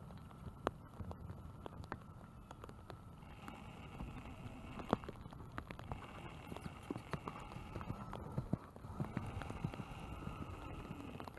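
Rain falling, heavy drops tapping irregularly and sharply on a hard surface over a steady low wash. A faint higher-pitched tone comes and goes three times.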